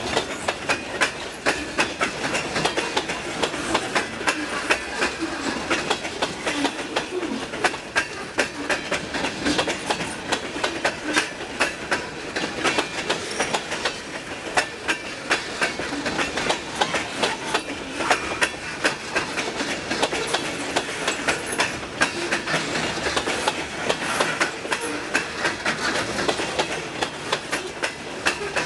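Freight train cars, covered hoppers and tank cars, rolling past, their steel wheels clicking over the rail joints in a steady, unbroken clatter over the rumble of the train.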